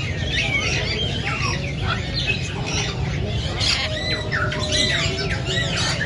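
Many caged birds, parrots among them, squawking and chirping at once: a dense chatter of short overlapping calls and whistles, with a steady low hum underneath.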